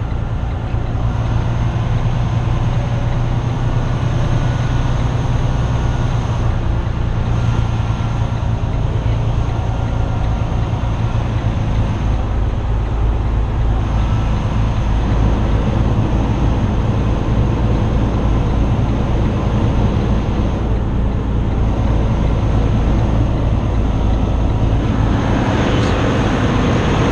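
Tractor-trailer diesel engine running steadily at low speed, heard from inside the cab, as the truck is slowly maneuvered for backing. A rush of higher noise comes in near the end.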